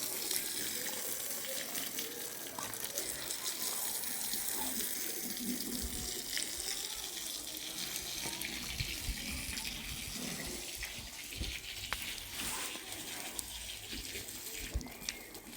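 Water running steadily from a tap, with a few faint knocks and clicks.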